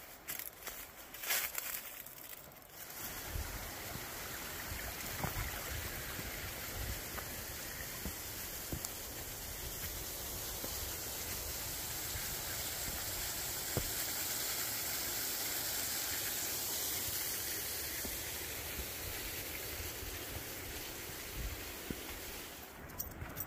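Rushing water of a stream or river, a steady hiss that slowly swells and then eases off, after a few seconds of footsteps on the trail.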